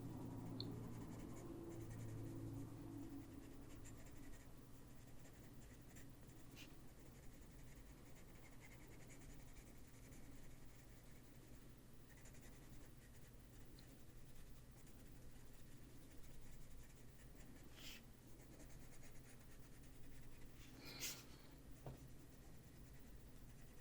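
Faint scratching of a colored pencil on paper as an area is filled in with layered strokes, with a few soft taps.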